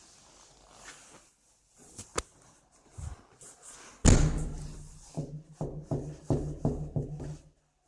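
Banging on a door: a couple of light taps, then a heavy blow about four seconds in, followed by a run of knocks about three a second.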